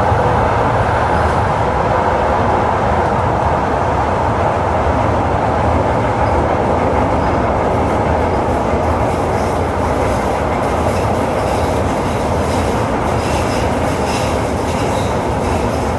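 Tyne and Wear Metrocar heard from inside the car while running: a steady loud rumble and roar of wheels on rail. Faint high squeals from the wheels come in during the second half.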